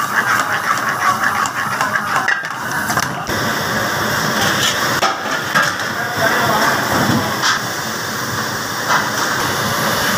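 Steady rushing noise of a gas burner turned up high under a steel pan of simmering mash dal, with a few sharp clinks of a steel ladle.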